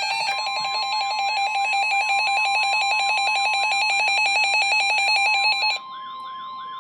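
Emergency alert signal: rapid electronic beeping over a warbling, siren-like sweep, with a single steady alert tone joining in at the start. The beeping cuts off near the end, leaving the steady tone and the warble, ahead of a tornado watch announcement.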